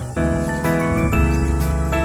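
Instrumental background music: a run of notes over a low held bass note.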